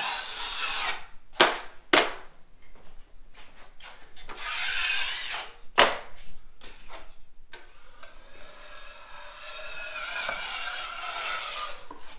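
Steel drywall knife scraping wet joint compound in several strokes, with three sharp clacks of the knife along the way. The longest scrape comes in the last few seconds.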